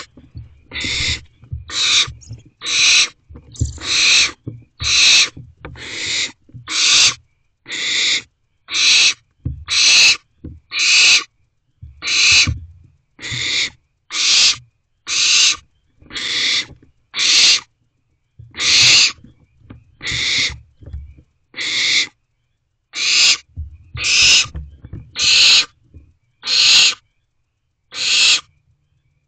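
Barn owlets giving repeated rasping hisses, the food-begging 'snore' call of barn owl chicks, about one a second, each a short harsh burst. A low rumble of the owlets moving in the nest box runs under many of the calls.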